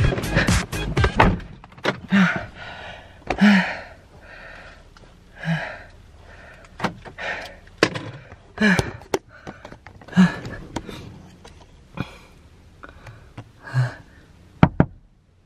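A car door being opened and shut and a phone camera being handled inside a car: scattered knocks and clicks, with short breathy noises between them and a sharp click near the end.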